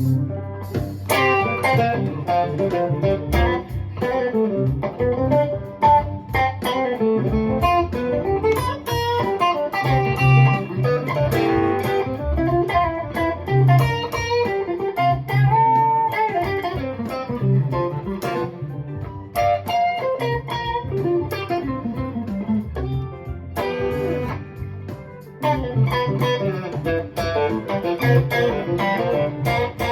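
Electric guitar playing a chord-melody line of picked triads and single notes over a backing track with a bass line.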